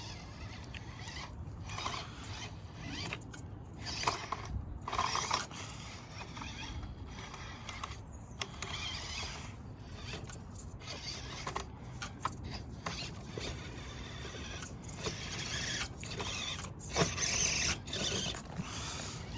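Axial SCX24 1/24-scale RC crawler's small electric motor and gears whirring in irregular stops and starts as it crawls over obstacles, with scattered clicks and knocks.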